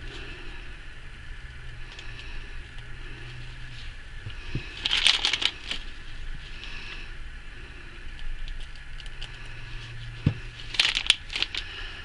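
Plastic piping bag crinkling with light clicks while whipped soap topping is piped into small plastic cups, in two short bursts, about five seconds in and again near the end, over a low steady hum.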